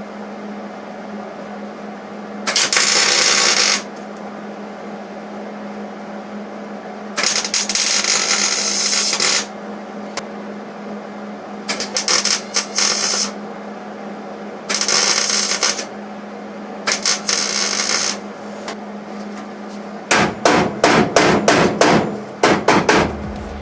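A pneumatic air tool, freshly cleaned after being flooded with oil, runs in five separate trigger bursts of one to two seconds each over a steady hum. From about twenty seconds in come a quick series of sharp, evenly repeated hammering hits.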